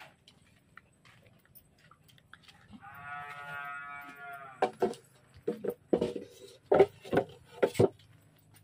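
Pigs in their pens: one drawn-out pitched squeal about three seconds in, then a run of short, sharp calls or knocks, the loudest near the end.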